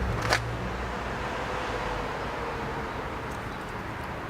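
A single sharp click just after the start, then a steady rushing background noise with a low hum and a faint humming tone that fades out a little past the midpoint.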